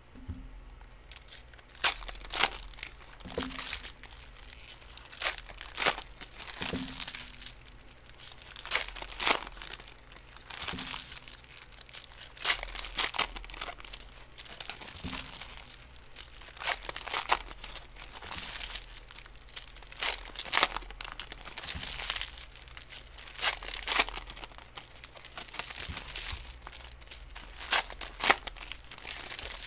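Foil trading-card pack wrappers crinkling and tearing as football card packs are ripped open and the cards handled, with soft knocks every second or two.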